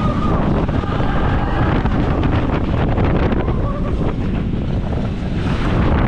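Wind buffeting the microphone of a camera riding a Mack Rides roller coaster train at speed: a loud, steady rushing noise.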